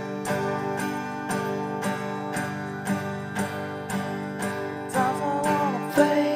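Music: an acoustic guitar strummed in a steady rhythm, about two strums a second, with a melody line coming in near the end.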